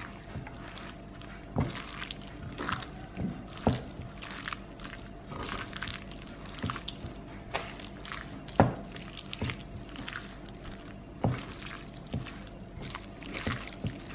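Wet squelching and irregular sharp smacks and clicks as thin-sliced beef is kneaded by hand with ground spice paste and tapioca starch on a stone mortar.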